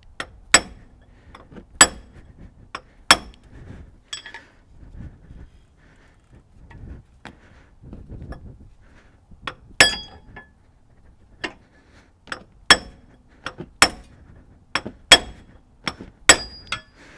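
Hammer blows on the steel flange of a GM 4WD truck's front half shaft: about ten sharp, ringing metal strikes, mostly about a second apart, with a lull of several seconds in the middle. The shaft flange is stuck tight to the differential flange by corrosion.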